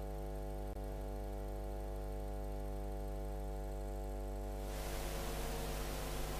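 Steady electrical mains hum with a ladder of overtones, the noise of the recording or transfer chain rather than any programme sound. A faint click comes just under a second in, and about three-quarters of the way through a broad hiss rises under the hum.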